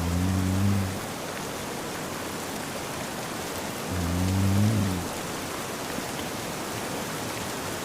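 Steady rain falling, with a man snoring in his sleep: a low snore at the start and another about four seconds in, each lasting about a second.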